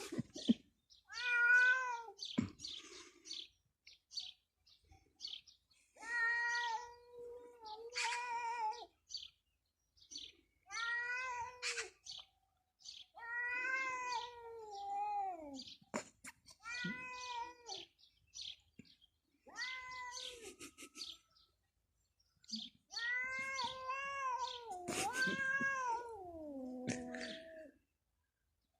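A cat meowing over and over in drawn-out, sing-song calls, about ten of them with short pauses between, the last and longest sliding down in pitch near the end.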